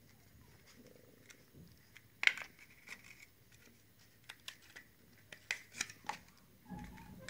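Light plastic clicks and rustles from handling a Hisky HCP100S micro RC helicopter, its snap-on plastic canopy being pulled off the frame. A sharper click a little over two seconds in, and a quick run of small clicks near six seconds.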